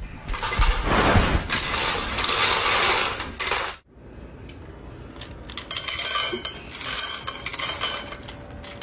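A loud rushing noise that cuts off abruptly, then a stretch of dense clinking and rattling of small hard objects against dishes or metal.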